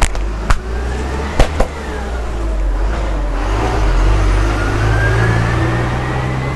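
A few sharp, loud snaps in the first two seconds. Then a motor vehicle's engine runs steadily, with a thin whine that slowly rises in pitch.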